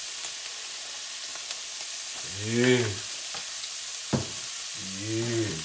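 Browned ground beef sizzling steadily in a nonstick skillet. A man's voice makes two short wordless sounds, about two and a half and five seconds in, and there is one sharp click about four seconds in.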